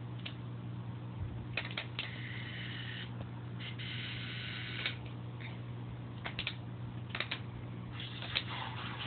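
Steady low mechanical hum from the fish tank's equipment, with scattered sharp clicks and a few short spells of higher hiss.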